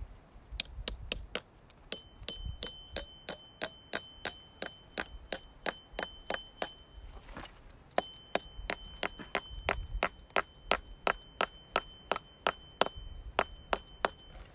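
A piton hammer driving a small steel angle piton into a rock crack: a steady run of metal-on-metal strikes, about three a second, each giving a ringing ding, with a brief pause about halfway. The tone rises the whole way in, the sign that the pin is seating well and has not bottomed out.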